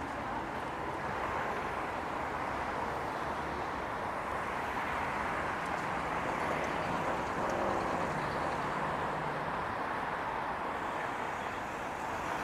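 City street ambience: a steady wash of road traffic noise from passing vehicles, swelling slightly about two-thirds of the way through.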